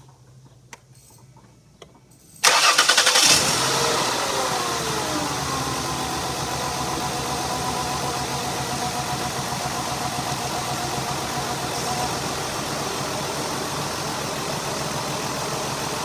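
Ford 3.0 L Duratec V6 engine starting: a short crank about two and a half seconds in, then it catches, flares up and the revs fall back to a steady idle. It runs with a misfire, one cylinder getting no spark from a bad coil pack.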